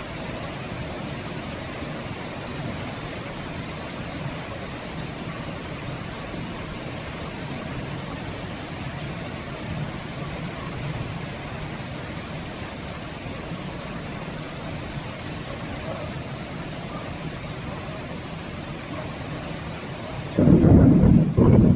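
Steady heavy rain with low rumbles of thunder, then a loud, sudden thunderclap near the end.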